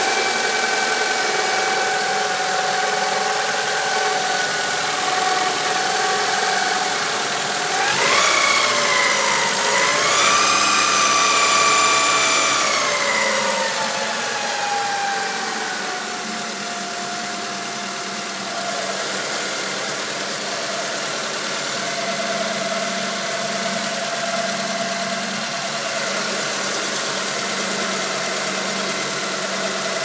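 1995 Honda Accord engine running with a steady whining tone. It is revved about eight seconds in, held up for a few seconds, then settles back to idle, with the whine rising and falling with the revs. It is a loud noise from a freshly replaced engine, which the owner has been told could be a timing belt that is too tight or a bad tensioner.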